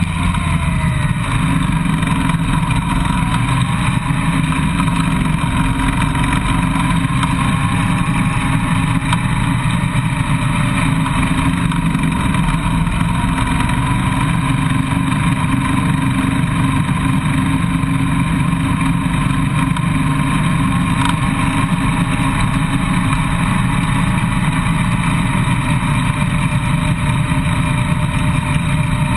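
Motorcycle engine running steadily at low riding speed, heard from on board the bike.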